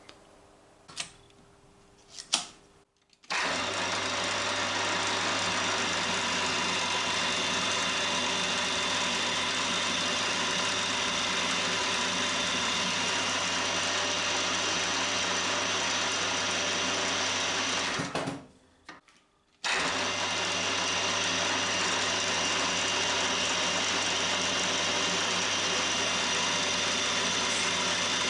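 Cormak ZX 7045 milling machine's spindle motor running steadily while drilling holes in an aluminium plate, after a couple of short clicks near the start. The sound cuts out briefly about eighteen seconds in and then resumes.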